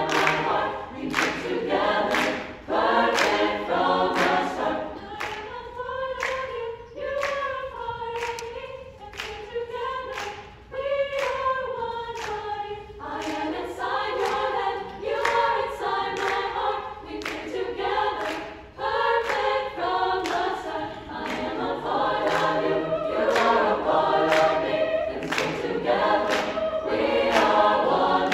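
A mixed choir of men and women singing in harmony, with the singers clapping their hands in rhythm.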